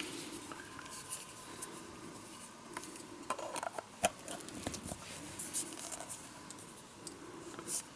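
Faint plastic clicks and scrapes as a Batmax NP-FV70 lithium-ion camcorder battery is handled and slid into its USB charger, with a few sharper clicks about halfway through.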